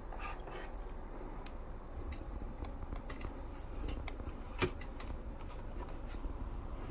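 Quiet room with a steady low hum and small scattered clicks and rustles of handling at a computer desk; one sharper click comes about two-thirds of the way through.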